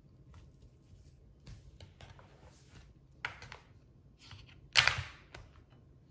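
Hands working crescent-roll dough on a wooden cutting board: faint rustles and light taps, with a kitchen knife cutting the dough against the board. A sharper knock of the knife on the board about five seconds in is the loudest sound.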